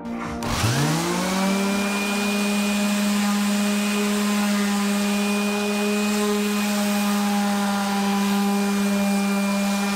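Random orbital sander switched on about half a second in, its motor rising in pitch to full speed within about a second, then running steadily while rough-sanding the pine slab flat.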